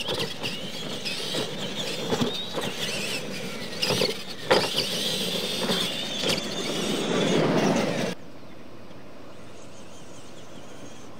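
Electric R/C monster trucks racing on a dirt track: high motor and gear whine rising and falling with the throttle, with sharp knocks as they land off the jumps. About eight seconds in the sound cuts off abruptly to a quiet background.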